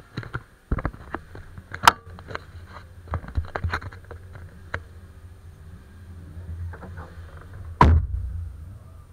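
Knocks, clicks and thunks of things being handled inside a car, over a low steady hum, with a sharp knock about two seconds in and a heavy thunk near the end.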